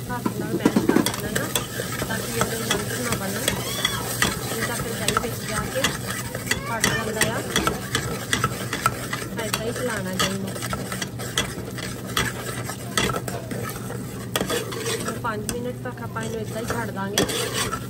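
Steel spoon stirring and scraping a thick onion-tomato masala around a steel pot, with frequent small clicks against the metal, over steady sizzling as the masala fries.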